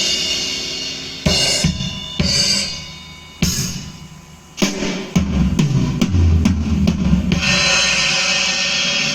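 Recorded music led by a drum kit (kick drum, snare and crash cymbals) played loudly through a home-built amplifier and speaker. The drums drop back for a couple of seconds, then come back in hard a little past the halfway point, with a long cymbal wash near the end.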